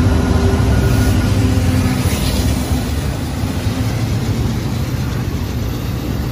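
BNSF diesel-electric freight locomotives passing at close range, their engine drone fading over the first few seconds. It gives way to the steady rolling noise of double-stack container well cars going by.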